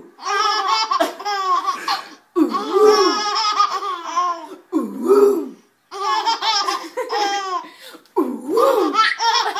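Twin baby girls laughing hard, long belly laughs in four runs broken by brief pauses.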